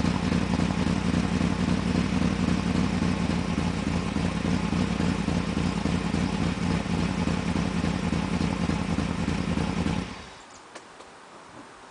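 1995 BMW 530i's 3.0-litre V8 with a Magnaflow exhaust running rough because of a vacuum leak, then shut off about ten seconds in. After it stops there are a couple of faint ticks.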